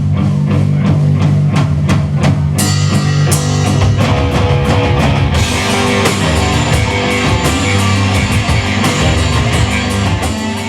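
Loud heavy rock music played on drum kit and electric guitar. The cymbals come crashing in about two and a half seconds in, and the band gets fuller again about halfway through.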